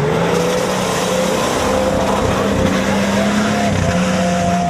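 Off-road 4x4's engine running at high revs, held fairly steady, with a slight dip in revs about four seconds in.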